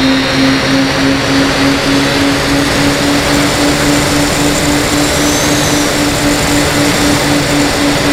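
Propeller aircraft engine running steadily in flight under a loud, steady rush of noise, its tone pulsing about four times a second.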